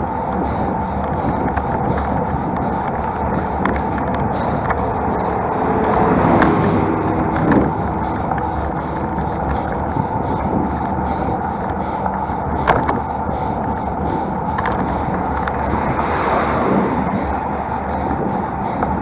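Steady rushing wind and road noise from a road bike climbing a mountain road, with occasional sharp clicks and a louder stretch about six to seven seconds in.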